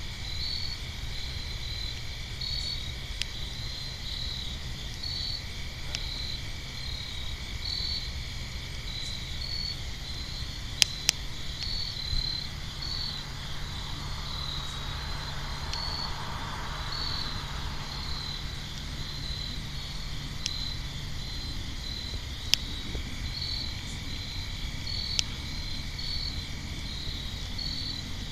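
A chorus of crickets chirping steadily in rhythmic pulses, with a few sharp pops from the crackling campfire.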